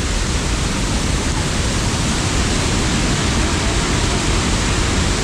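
Swollen, muddy floodwater pouring over a low concrete dam and churning below it: a loud, steady rush of water. The river has risen in a storm and is overflowing the dam.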